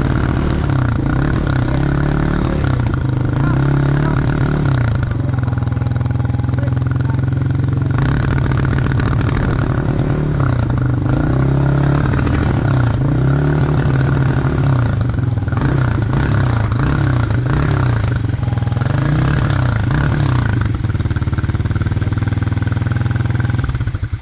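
Snowblower engine running steadily, its pitch dipping and recovering again and again as it works.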